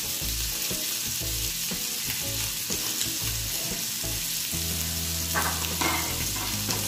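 Diced chicken sizzling in butter in a hot non-stick frying pan: a steady frying hiss.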